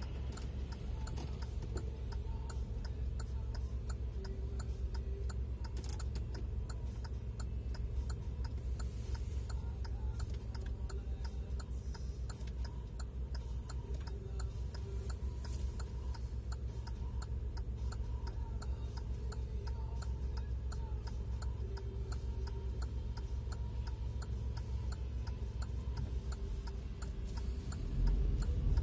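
A car's turn-signal indicator clicking steadily inside the cabin, about three clicks a second, over a low engine rumble. The rumble grows louder near the end as the car moves off.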